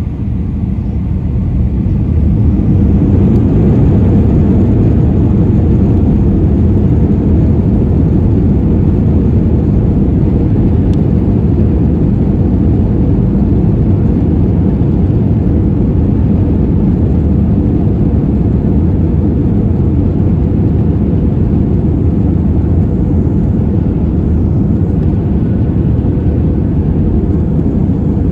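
Airbus A320-232's twin IAE V2500 turbofans at takeoff thrust during the takeoff roll, heard from inside the rear cabin: a loud, deep, steady rumble that builds over the first few seconds and then holds.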